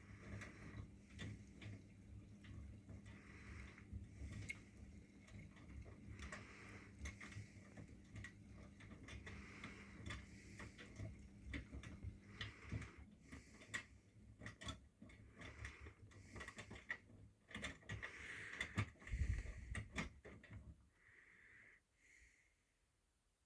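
Miele washing machine working between the main-wash spin and the first rinse: a low steady hum with rapid ticks and knocks. The hum stops about halfway, a heavier thump comes later, and it goes almost quiet near the end.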